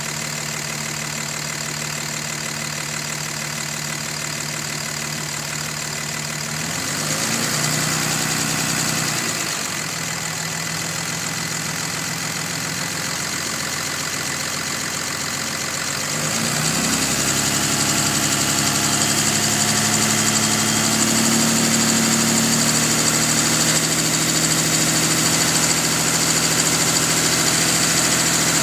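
5.9 Cummins inline-six turbodiesel in a 2005 Dodge Ram 2500 idling with a faint ticking knock. It is revved up briefly about seven seconds in and settles back, then is raised to a steady higher speed about sixteen seconds in. The owner does not know the cause of the tick and finds it loudest when the engine is cold.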